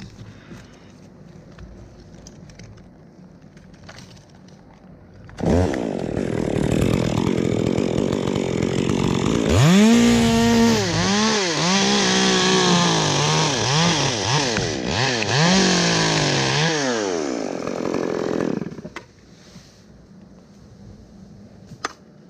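Two-stroke chainsaw revving up about five seconds in and cutting cypress wood, its pitch repeatedly dipping under load and rising again. It drops back to quiet a few seconds before the end.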